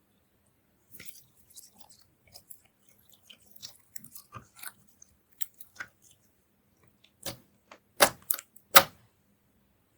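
Slime being squished and kneaded by hand: small sticky crackles for the first several seconds, then several louder pops near the end as air pockets burst.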